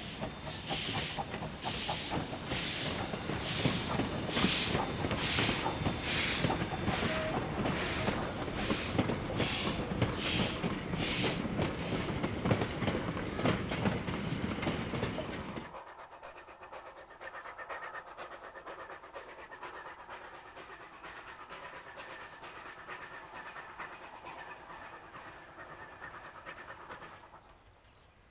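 Steam locomotive Ww 480, a New Zealand Railways Ww class tank engine, working hard uphill, its exhaust chuffing in loud regular beats that quicken from under one to about two a second. About halfway the sound drops suddenly to a much quieter steady rumble and hiss of the passing train.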